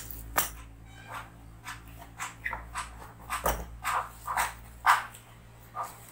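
Packaging handling noise: plastic wrapping on a light stand rustling and a long cardboard box knocking and sliding on a tabletop, in a string of short irregular knocks and rustles.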